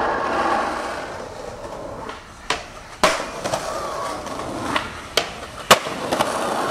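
Skateboard wheels rolling on pavement, with about six sharp clacks of the board striking the ground in the second half; the loudest comes near the end.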